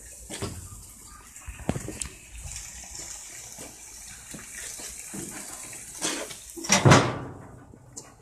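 Steaks sizzling on foil on a gas grill, a steady hiss with scattered handling knocks. Near the end comes a loud clunk, fitting the grill lid being shut, and the sizzle drops away after it.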